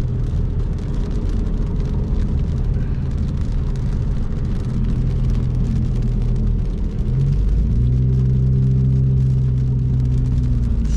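Car engine and road noise heard from inside the moving car, a steady low drone. About seven seconds in, the engine note changes and gets a little louder.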